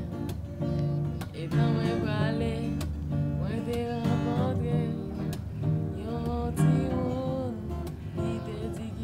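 Acoustic guitar strummed in a steady rhythm, with a young man singing over it.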